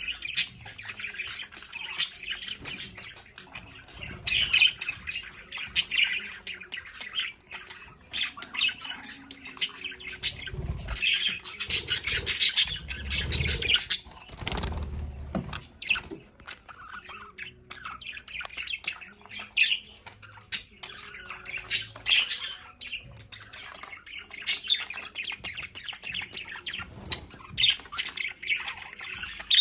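A flock of budgerigars chattering constantly, a dense mix of chirps, warbles and squawks.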